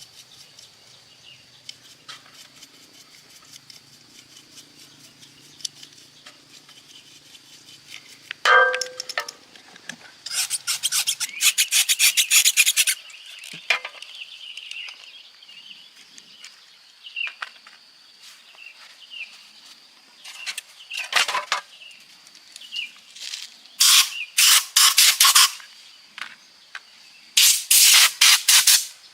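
Rapid hand scraping strokes, several a second, coming in three runs: about ten seconds in, then around twenty-four and twenty-eight seconds in, with a few single strokes between them.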